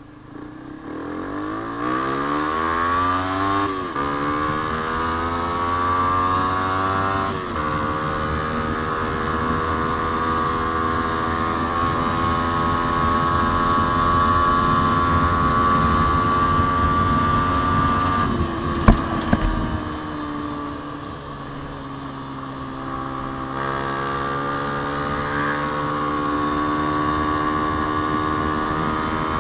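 Yamaha Sniper 150's single-cylinder four-stroke engine through a JVT aftermarket exhaust, revving up through two quick upshifts and then running at a steady cruising speed. About two-thirds through there is a short sharp knock; the engine then eases off to a lower pitch and picks up speed again.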